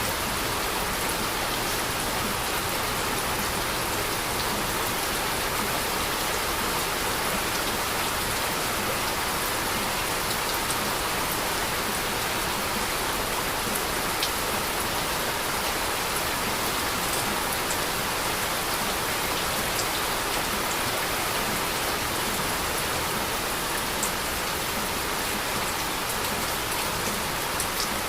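Heavy rain falling steadily: an even, unbroken hiss with a few sharper drop taps now and then.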